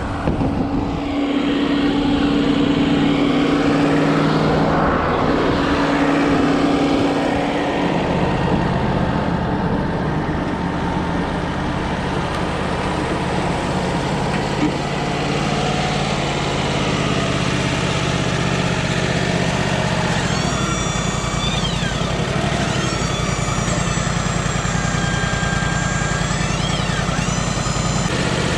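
Wood-Mizer LT35 portable sawmill's engine running steadily. Its note changes about eight seconds in, settling into a steady drone.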